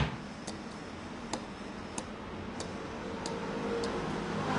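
Light, sharp taps, about two a second, of a small metal tool beating a lump of incense-ash paste on a stone slab, working the paste into a pliable dough for drawing out fine raised threads.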